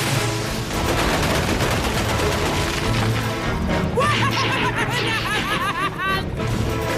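Cartoon action music under a dense clatter of blasts and crashes. From about four seconds in, a string of quick high warbling glides sounds over it.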